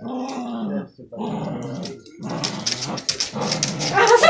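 A dog growling in play while tugging on a toy, in three bouts with short breaks between.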